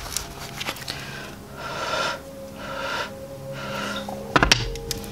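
A person breathing out slowly and deeply twice, in long hissy breaths. About four and a half seconds in come a few sharp taps of tarot cards being handled, over faint background music.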